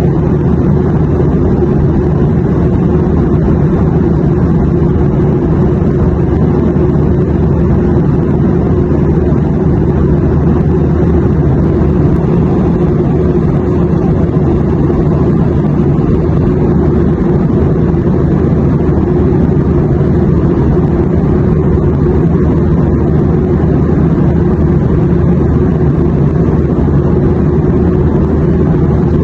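Airplane noise: a steady, unchanging low rumble with a softer hiss above it and no distinct events.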